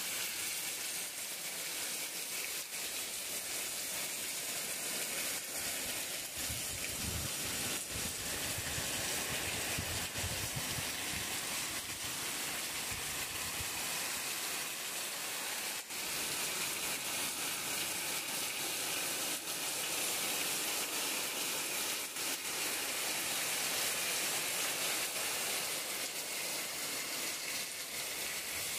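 Heavy tropical downpour: dense, steady hiss of rain falling on the ground, plants and roof.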